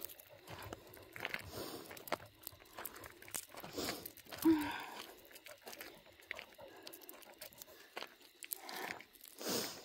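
Footsteps crunching on loose gravel at an uneven walking pace, with a few louder scuffs.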